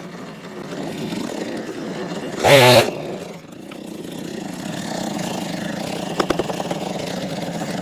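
Chainsaw idling, with one short throttle blip about two and a half seconds in.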